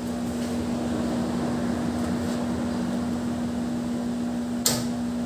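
Diesel generator set running steadily with a constant hum. A single sharp click sounds over it near the end.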